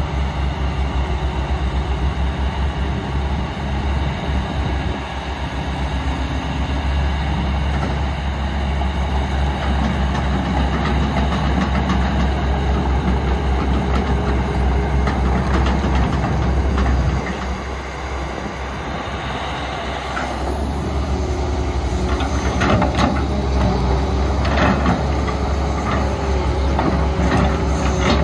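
Heavy diesel construction machinery running with a deep, steady rumble. From about two-thirds of the way in, repeated clanks and knocks join it.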